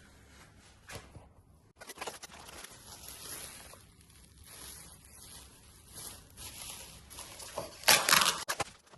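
Packaging being handled and unwrapped: irregular rustling and crinkling with small clicks, and a louder burst of crinkling about eight seconds in.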